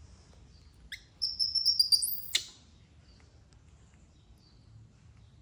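A high-pitched animal call: a rising chirp about a second in, then about a second of shrill, squeaky notes, ending in a quick falling squeak.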